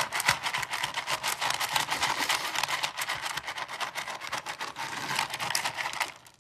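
Dog eating dry kibble from a stainless steel bowl: rapid, irregular crunching with pieces clattering against the metal, stopping suddenly near the end.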